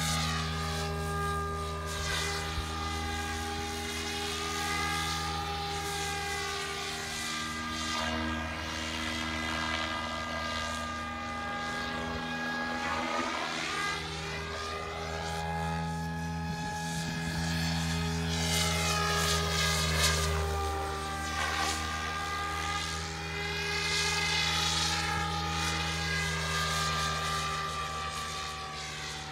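Radio-controlled model helicopter flying, its rotor and motor whine holding steady with the pitch sweeping up and down several times as it moves through the sky.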